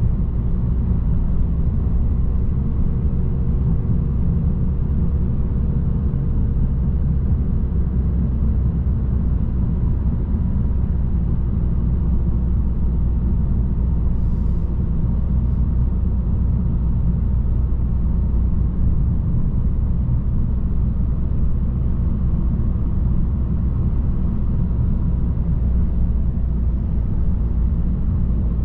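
Steady low rumble of engine and tyre noise inside a moving Citroën car's cabin at a constant cruising speed.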